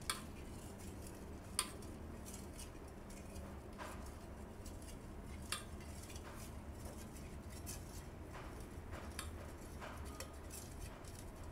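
Metal spoon stirring a melted oil-and-butter cream base in a stainless steel bowl: soft scraping against the bowl with a sharp clink every second or two. The stirring works the thick part that has stuck to the bottom loose.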